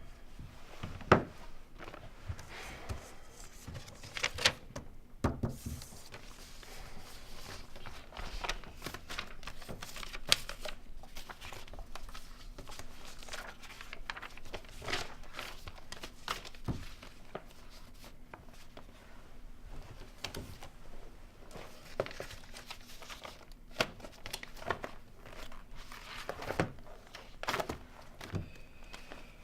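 Crinkling, rustling handling noises in a small room, broken by scattered sharp clicks and knocks; the loudest knock comes about a second in.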